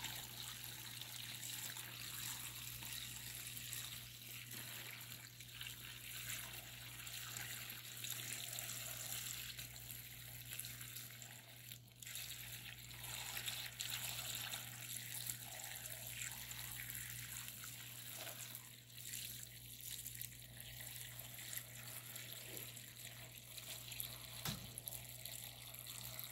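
Salted dongchimi broth being poured slowly and faintly from a plastic container into a plastic tub of vegetables, tipped gently to keep it from splashing.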